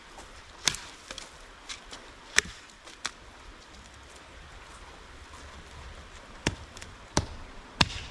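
About seven sharp knocks at uneven intervals, like chopping or striking something solid; two of the later ones carry a heavier thud.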